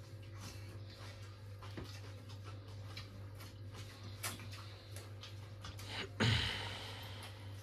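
Quiet eating sounds: scattered, irregular small clicks and taps over a steady low hum. About six seconds in, a louder, brief rush of noise stands out.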